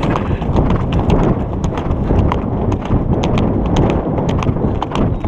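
Horse's hooves clip-clopping on a dirt trail as heard from the saddle, a run of sharp irregular hoof strikes over a steady low rush of wind on the microphone.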